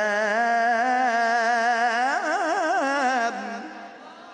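A man reciting the Quran in the melodic tajweed style, holding one long wavering note that breaks into a fast ornamental trill about two seconds in and ends about three seconds in.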